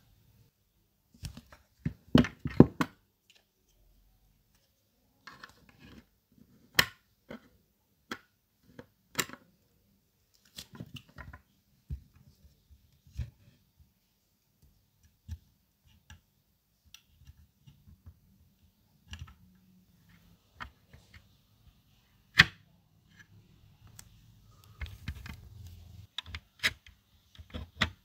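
Small scattered clicks and taps of steel tweezers and fingers on the small plastic parts and body of a scale model car, with a quick run of clicks about two seconds in and single sharper clicks later.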